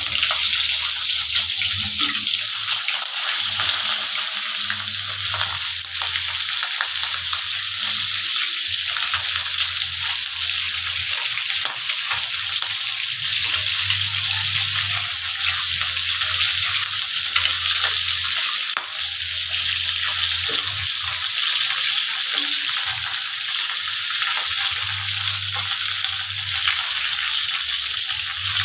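Tamban (sardines) frying in hot oil in a wok, a steady loud sizzle, with a spatula turning the fish in the pan.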